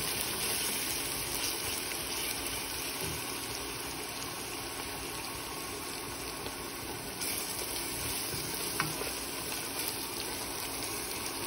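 Onions and ginger-garlic paste sizzling steadily in hot oil in a steel pot as they are stirred with a wooden spoon, frying until the raw smell of the paste cooks off.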